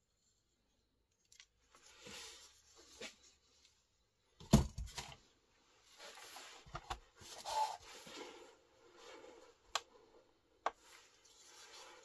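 Handling noises from a folding knife and a tool being moved around on a table: soft rustling from hands, one loud knock about four and a half seconds in, and a few sharp clicks later on.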